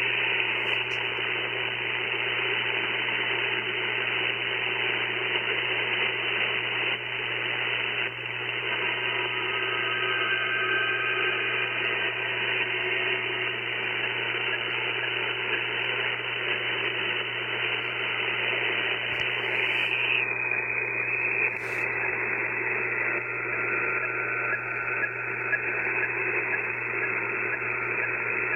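Shortwave radio receiver tuned to 8.46 MHz, playing an unidentified signal: a steady, noisy rushing sound with faint steady tones in it, cut off sharply at the top by the receiver. About twenty seconds in, the top end narrows slightly.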